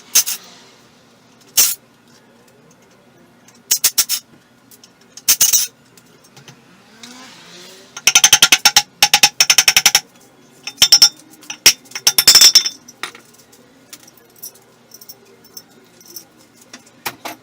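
Metal clinking and rattling, as of hand tools and small engine parts being handled: a few scattered sharp clinks, then two spells of rapid, ringing metallic clicks, about eight and eleven seconds in.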